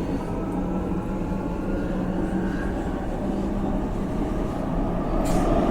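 Subway train running: a steady rumble with a low held hum, growing a little louder toward the end, with a brief high squeak about five seconds in.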